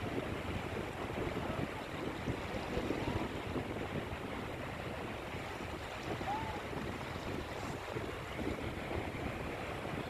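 Small waves breaking and washing up a sandy shore, a steady rushing surf, with wind buffeting the microphone.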